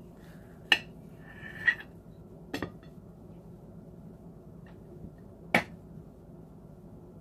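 Table knife clinking and scraping on a ceramic dinner plate while food is cut and moved: about four sharp clinks, with a short scrape between the first two. A low steady hum runs underneath.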